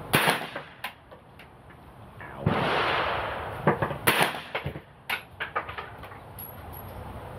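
Kodiak K9 9mm carbine fired from a bench, several sharp shots a few seconds apart.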